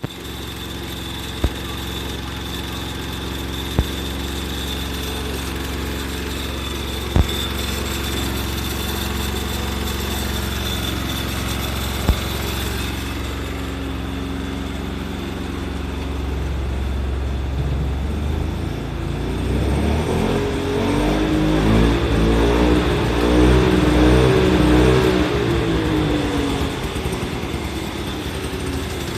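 Suzuki SJ10 Jimny's two-stroke three-cylinder engine idling steadily, with a few sharp clicks in the first half. In the second half it is revved up and let back down to idle.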